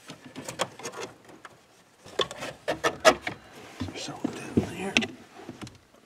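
Plastic dash trim panels on a 2013 Ford F-150 being worked loose by hand: irregular clicks, knocks and creaks of the plastic and its retaining clips, loudest about three seconds in.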